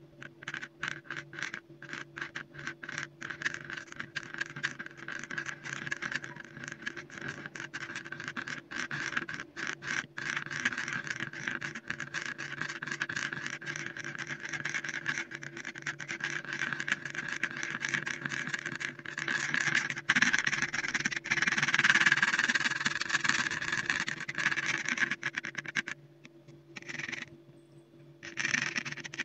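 A palette knife stirring and smearing thick wet paint on a textured mat: a run of quick sticky squelches and scrapes, becoming denser and louder about two-thirds of the way through, pausing briefly near the end, then starting again.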